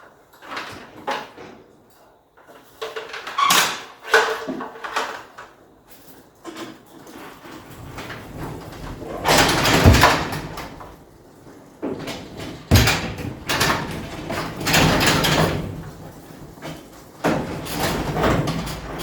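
Sectional garage door being raised by hand, rolling and rattling in stretches of a second or two, among knocks and scrapes of handling work, with a sharp knock about two-thirds of the way through.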